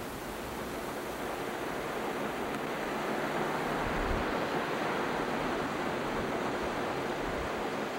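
Gentle ocean surf washing onto a beach, a steady rushing wash that grows a little louder toward the middle.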